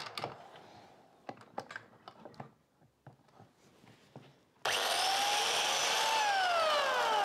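DeWalt DW682K 600 W biscuit jointer: a few light knocks as it is handled, then its motor is switched on a little past halfway, whines up to speed and is released, its pitch falling steadily as it spins down.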